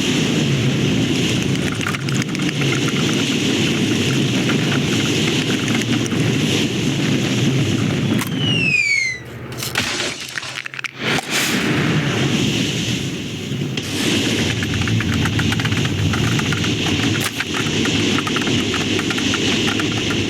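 Film sound effects of a rocket in flight: a loud, steady rushing roar. About eight seconds in a short whistle falls in pitch, the roar breaks off briefly, and then it returns.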